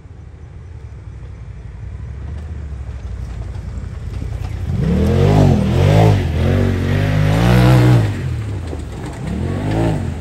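Side-by-side UTV engine racing up a dirt hill climb, growing louder over the first few seconds, then revving hard with its pitch rising and falling in about five surges as the throttle is worked.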